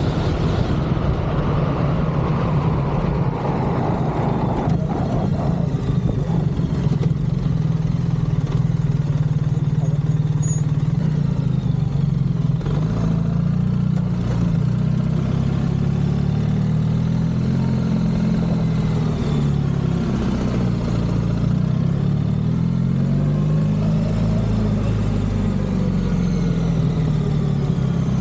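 BMW R1300GS Adventure's boxer-twin engine running under way, its note rising and falling gently with the throttle, over wind and road noise.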